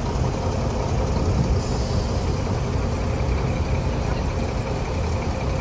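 Steady low engine rumble with a constant noisy background.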